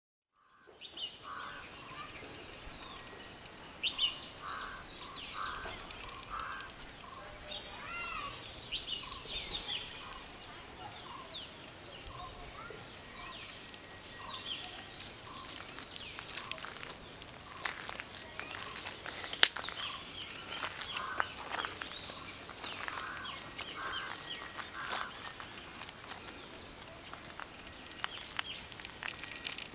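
Many birds chirping and calling together in a rural outdoor chorus, with quick repeated chirps and short whistled glides. A few sharp clicks stand out, the loudest about two-thirds of the way through.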